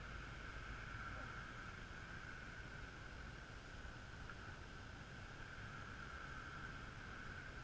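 Faint, steady background noise: a low rumble with a constant high-pitched hum over it and no distinct events.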